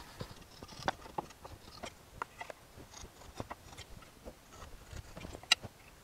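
Pencil ticking and scratching as lines are drawn along a metal square across wooden boards, with small irregular taps as the square is shifted and set down, and one sharper click about five and a half seconds in.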